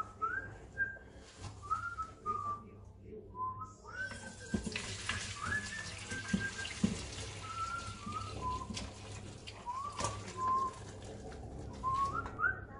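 Fish stock poured from a metal pressure-cooker inner pot through a plastic strainer into a saucepan, a splashing pour that starts about four seconds in, with a few clinks of the pot. Over it runs a string of short, rising whistled notes.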